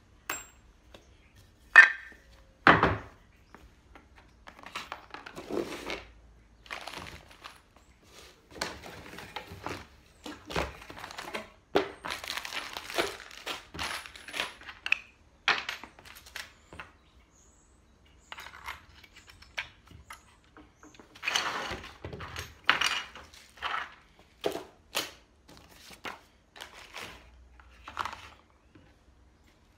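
Irregular clicks, knocks and rustling of small tool parts, screws and cardboard packaging being handled and set down on a wooden workbench, with a few sharper knocks.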